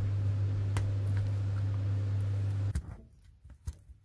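A steady low hum that cuts off suddenly about three-quarters of the way in, with a few light clicks of a flathead screwdriver prying at a plastic push-pin retainer on an engine splash shield; the clicks are clearest after the hum stops.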